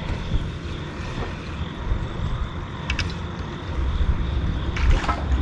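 Low, steady rumble of road traffic crossing the bridge overhead, swelling louder near the end, with a few small clicks.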